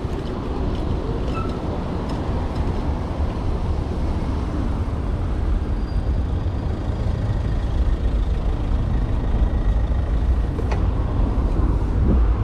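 Steady wind and road noise while riding an electric bike along a city road, getting a little louder in the second half.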